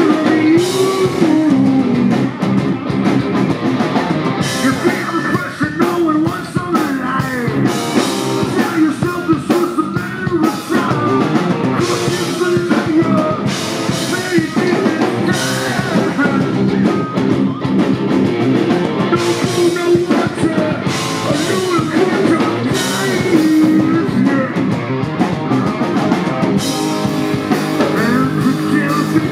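Live rock band playing: electric guitar, bass guitar and drum kit, with a singer's vocals over them.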